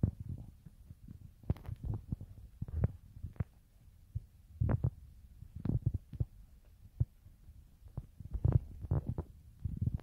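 Wind buffeting the microphone in irregular low thumps and rumbles, with a few sharper knocks.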